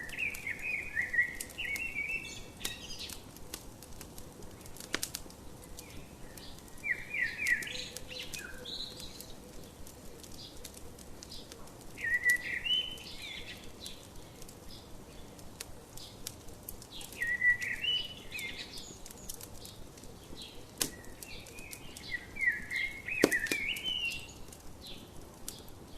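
A songbird sings short warbling phrases about every five seconds, over the scattered crackles and pops of a wood fire.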